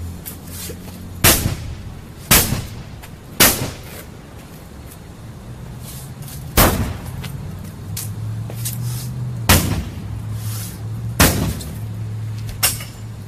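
Heavy blows of an axe striking the body of a Ford Thunderbird, seven sharp hits spaced irregularly about one to three seconds apart, each with a short ringing tail, over a steady low hum.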